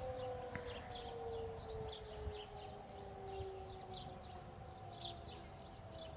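Distant Federal Signal outdoor warning sirens (a 3T22 and several 2001s) sounding together as several steady tones that slowly drop in pitch as they wind down. Birds chirp over them.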